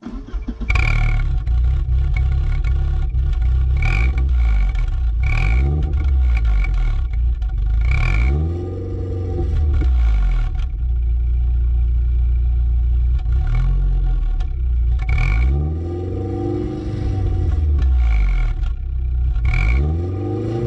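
Audi 80 estate's engine running at the tailpipe and blipped up and back down about six times. It is fitted with a cheap bolt-on 'turbo' gadget, which gives only a thin steady whine over the exhaust note.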